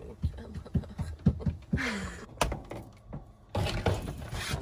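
A drowsy person woken in bed giving a few short low grunts and a falling groan, then a sharp click and a spell of rustling from bedding and movement near the end.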